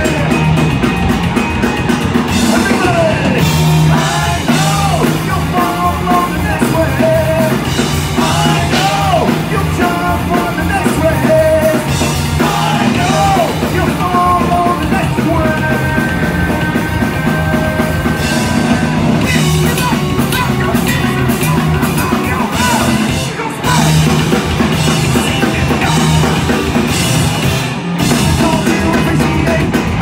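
Punk rock band playing live: loud, fast distorted electric guitars driven by a drum kit, with no break.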